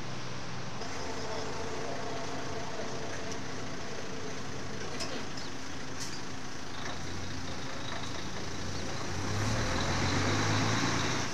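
Street traffic: a motor vehicle's engine running, with a deep rumble that swells as it passes about nine seconds in.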